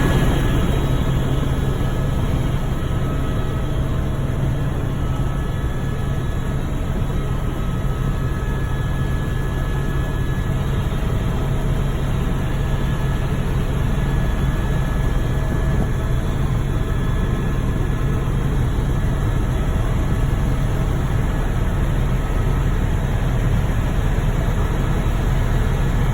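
Tour helicopter running during takeoff: a steady, loud drone with a strong low hum.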